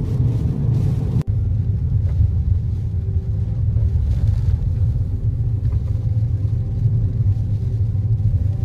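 Steady low rumble of tyre and engine noise inside a moving Toyota car's cabin on a wet road. The rumble breaks off for an instant about a second in, then carries on unchanged.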